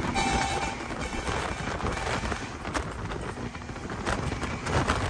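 Road and wind noise of a truck driving on the highway, heard at the open cab window: an even rumble and hiss with a few sharp ticks. A horn's tone fades out within the first second.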